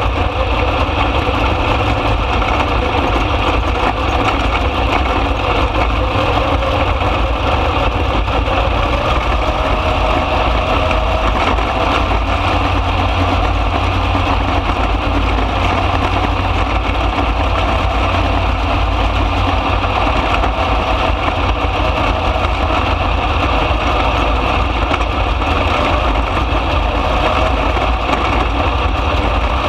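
305 sprint car's V8 engine running hard under racing load, heard from the cockpit, loud and steady throughout as the car laps a dirt oval.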